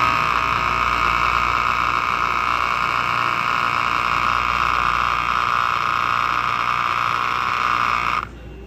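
Osma cold espresso machine running while it pulls a cold espresso shot: a steady, loud whirring noise that cuts off abruptly near the end.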